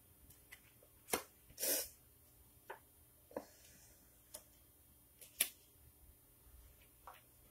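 Quiet room with a few sharp clicks and taps, spaced a second or two apart, and a brief rustle just after the first click. The loudest clicks come about a second in and about five seconds in.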